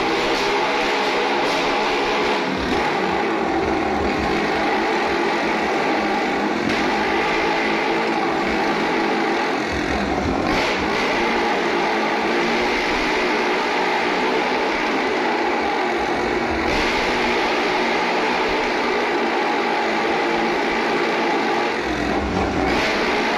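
Two motorcycles riding the vertical wall of a wall-of-death drum, their engines revving hard without a break, loud and steady.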